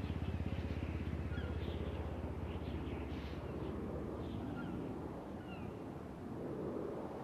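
Birds chirping in short, sliding calls over a low, pulsing rumble that fades away after the first couple of seconds.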